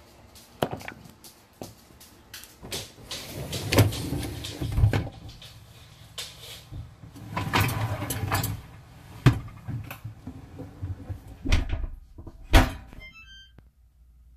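Dishes clattering and knocking against a dishwasher's wire rack as it is loaded and shifted, with a few deep thuds. The dishwasher shuts with a loud knock about twelve and a half seconds in, followed by a quick run of short beeps.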